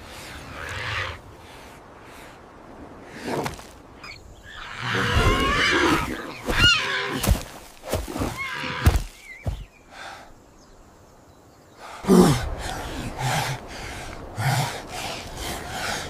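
A string of animal cries and grunts. A high wavering screech comes about six seconds in, then a lull, then a sudden call dropping in pitch near twelve seconds, followed by short calls.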